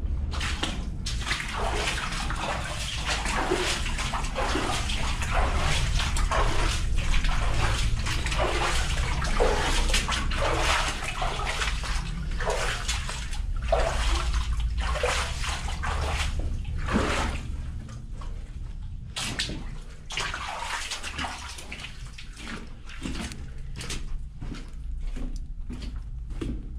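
Footsteps wading through shallow water, a slosh with each stride at about one a second, over a steady low rumble; the splashing grows quieter about two-thirds of the way through.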